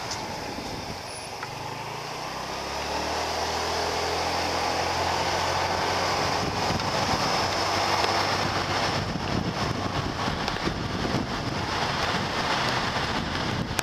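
Motorbike engine picking up speed about two seconds in, then running steadily at cruising pace, with wind and road noise rushing over the microphone.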